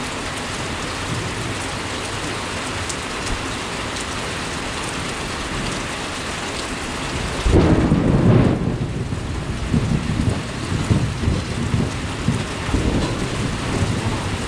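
Heavy rain pouring steadily; about halfway through a sudden clap of thunder breaks in and rolls on as low, uneven rumbling while the rain keeps falling.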